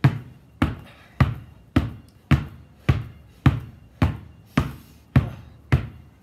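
Two basketballs dribbled hard together on a concrete driveway, both balls striking at once. The bounces come in a steady rhythm, a little under two a second.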